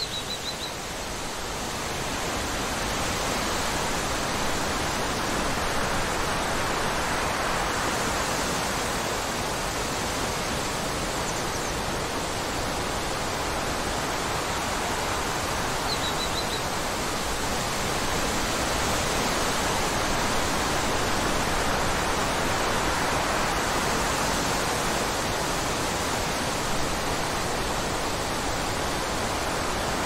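Wind blowing through tall grass and leaves, a steady noise that swells over the first few seconds and then holds with slow gusts. A small bird gives a brief run of quick high chirps at the very start and again about halfway.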